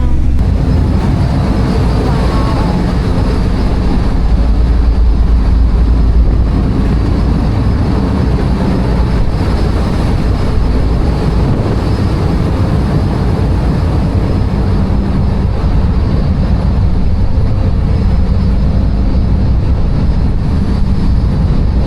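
Ferry's engines running with a steady low rumble, under a constant rushing noise.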